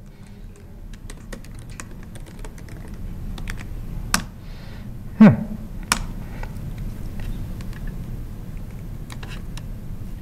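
Laptop keyboard typing: irregular keystroke clicks. A short falling tone sounds about five seconds in.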